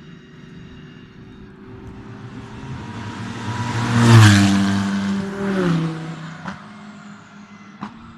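A race car drives past. Its engine note builds to a loud peak about four seconds in, then drops in pitch in steps as it moves away. Two sharp cracks follow near the end.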